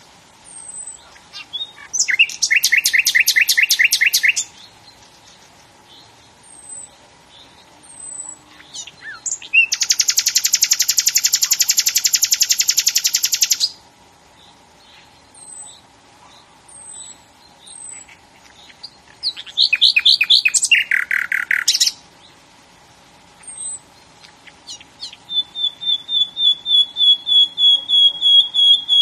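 Birdsong: loud rapid trilled phrases, one a long buzzy trill lasting about four seconds, with short high chips in between. Near the end comes a quickening series of repeated whistled notes, over a faint steady hum.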